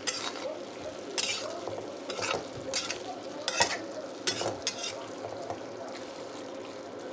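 A spatula stirring and scraping methi (fenugreek) and potato saag in a pan, about seven short scrapes over a steady sizzle, which stops scraping for the last two seconds.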